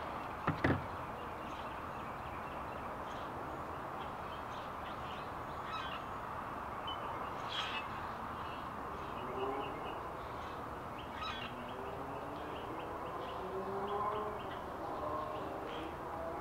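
Steady background noise with birds calling, a run of short repeated calls in the second half. A sharp double knock about half a second in.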